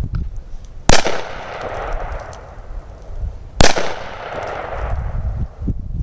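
Two gunshots, about two and a half seconds apart, each followed by a short fading echo, over a low rumble.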